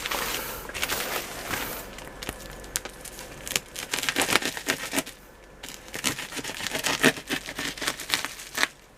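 Packaging being handled and pulled open: irregular crinkling, scraping and tearing noises.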